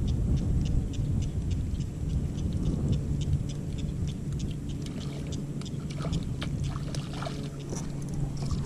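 Spinning reel being cranked on a lure retrieve, ticking evenly about four times a second, over a low rumble of wind and water.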